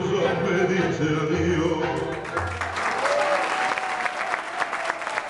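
Music ends about two seconds in, and an audience of diners breaks into applause.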